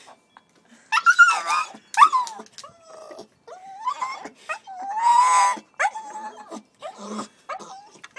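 Staffordshire bull terrier puppy crying to be let back in: a string of high whines and yelps that bend up and down in pitch, the longest held for about a second around five seconds in.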